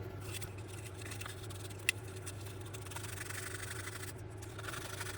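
Faint rubbing and scraping as a small connection wire from a model locomotive's motor is cleaned down by hand, with one light click about two seconds in.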